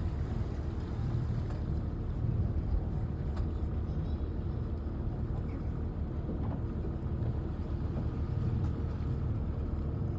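Canal tour boat's engine running steadily, a low, even drone heard from on board.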